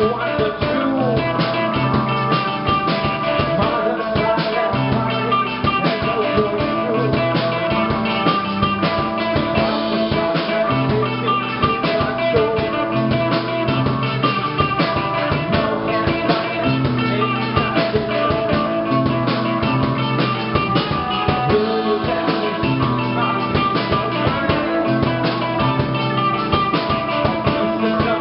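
Live rock band playing loudly: electric guitars over bass guitar and a drum kit keeping a steady beat, with no singing picked up.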